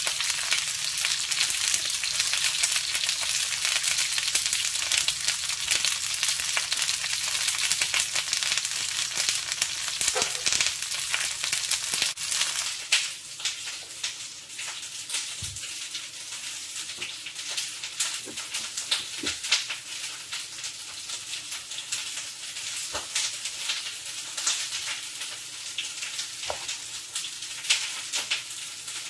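Tomatillos, serrano chilis, garlic and onion sizzling in a frying pan. After about thirteen seconds the sizzle grows fainter, and a knife knocks irregularly on a wooden cutting board as cilantro is chopped.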